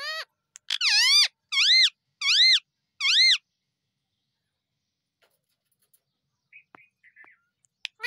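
Rose-ringed parakeet (Indian ringneck) calling: four loud calls in quick succession, each rising then falling in pitch. Then a pause with a few faint soft chirps near the end.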